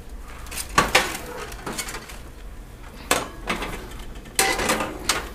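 Metal kitchen tongs clinking and scraping against a toaster oven's rack and tray as hot food is lifted out: several separate clatters a second or so apart.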